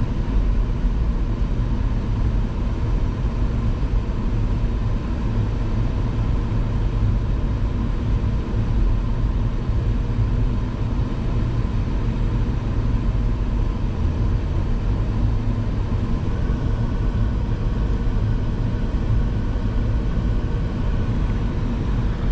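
Car driving on the highway, heard from inside the cabin: a steady low rumble of road and engine noise that holds even throughout, with a faint high steady tone added about three-quarters of the way through.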